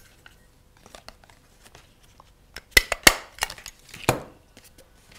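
Stiff paper crinkling and rustling as it is handled, then a small stapler snapping shut with sharp clacks about three seconds in, followed by more paper crinkling.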